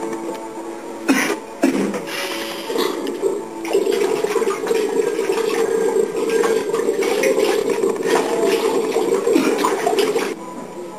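Water from a washbasin tap running steadily into the sink while hands and face are washed, cutting off suddenly near the end. Two short knocks come a little over a second in, before the water starts.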